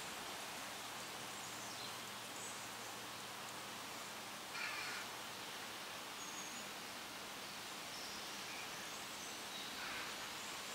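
Steady outdoor background hiss, with one short harsh bird call about halfway through and a few faint high chirps after it.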